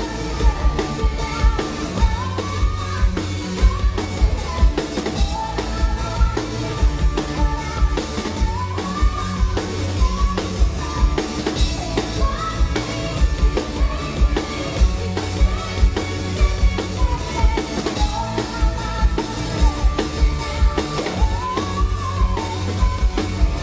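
Live pop-rock band playing a song: a female lead voice singing over electric guitars, bass and a drum kit keeping a steady beat.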